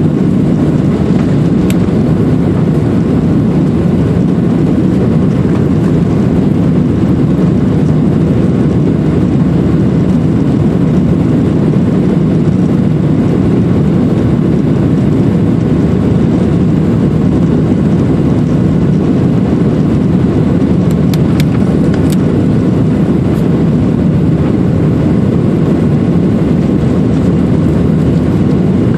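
Steady cabin noise of a Boeing 737-800 climbing after takeoff: its CFM56-7B jet engines and the airflow over the fuselage make a loud, even low rumble heard from inside the cabin.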